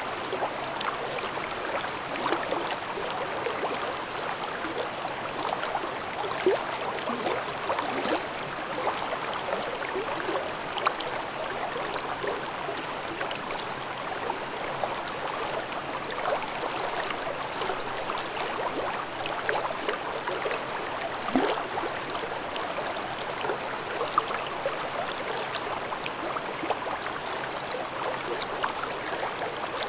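Mountain stream babbling over rocks: a steady rush of water with small gurgles and splashes throughout.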